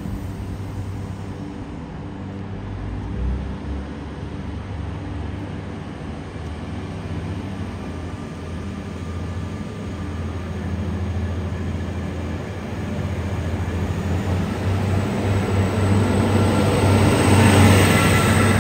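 Diesel railcar engine running with a steady low hum, growing steadily louder over the second half as the train pulls along the platform and passes close by.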